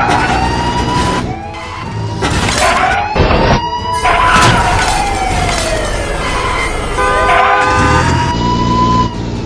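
Police siren wailing, its pitch rising and falling slowly, over background music. Two sudden bangs come about three and four and a half seconds in.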